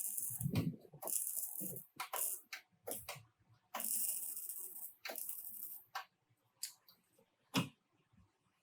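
Body-shop tool work: a run of sharp clicks and knocks, with three or four short hissing or scraping bursts about a second long each.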